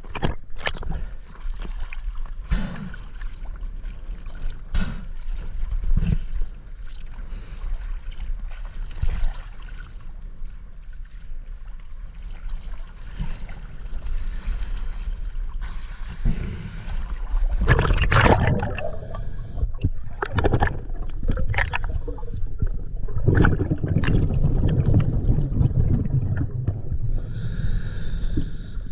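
Water sloshing, splashing and gurgling around a scuba diver's mask-mounted camera as it bobs at the surface and dips under. There are irregular splashes throughout, growing louder and busier in the second half.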